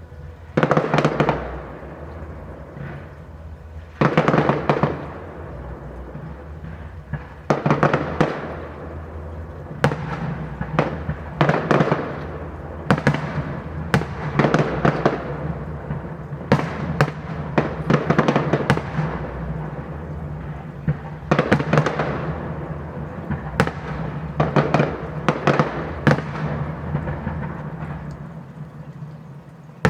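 Fireworks bursting overhead in a string of loud bangs at irregular intervals, some followed by crackling or reverberating tails. The bursts come closer together in the middle of the stretch.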